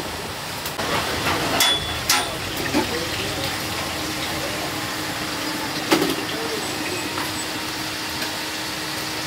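Busy food-stall kitchen: a steady rushing hiss with a few sharp metal clinks of steel plates and pots, the loudest about six seconds in, and a faint steady hum that starts about three seconds in.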